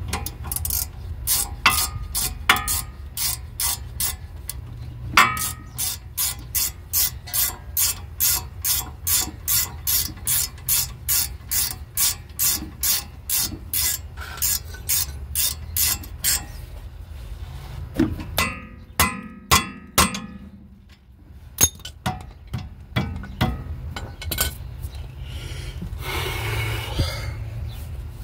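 Socket ratchet wrench clicking as a brake caliper bolt is turned, a steady run of sharp clicks about two a second that stops about 16 s in. A few scattered clicks and knocks follow, then a short scraping rub near the end.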